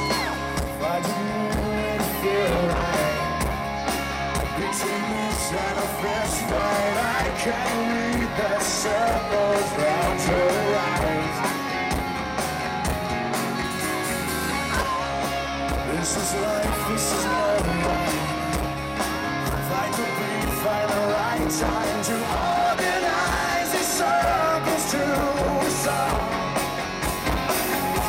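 Live rock band playing a song: distorted electric guitars and a drum kit, with a male lead vocal singing over them.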